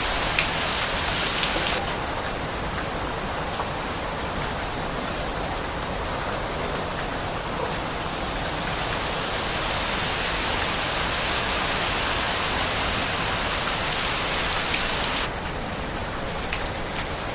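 Steady rain falling: a continuous hiss flecked with the ticks of single drops. The sound drops suddenly in brightness and level about two seconds in and again near the end.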